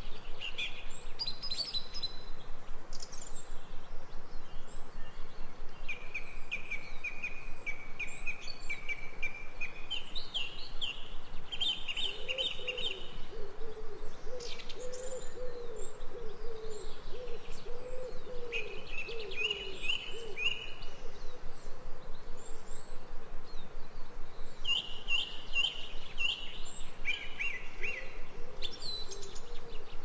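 Forest birds singing: repeated phrases of quick high chirps come in several bouts, with a lower wavering call in the middle and again near the end, over a steady background hiss.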